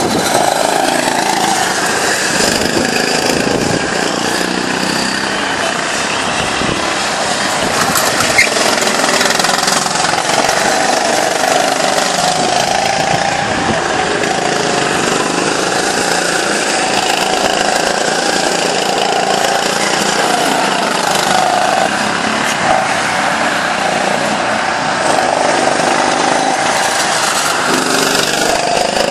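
Small go-kart engines buzzing as several karts lap the track. The engine note rises and falls as they accelerate and brake through the corners.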